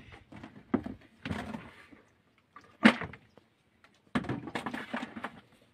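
Irregular knocks and bumps, the loudest about three seconds in, with two longer bursts of rustling noise.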